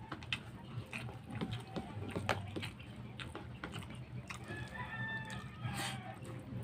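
Close eating sounds: short wet clicks and smacks of chewing and of fingers working rice and sauced ribs, over a low steady hum. A rooster crows in the background about four and a half seconds in, one drawn-out call lasting about a second.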